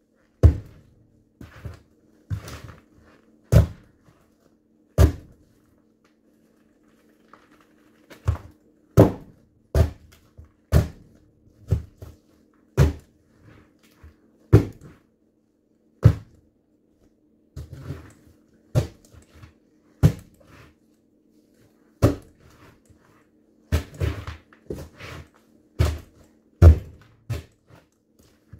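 High-heeled platform ankle boots stomping on smashed pumpkin pieces on a wooden floor, crushing the pumpkin. Heavy thuds come at about one a second, with a pause of about three seconds a quarter of the way through.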